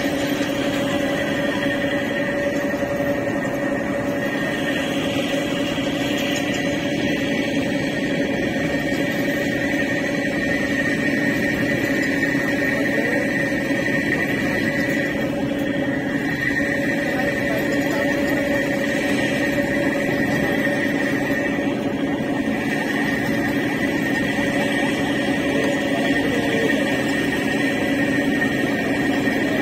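A ferry's engine running steadily under way: a constant drone with several steady pitched tones over a wash of noise.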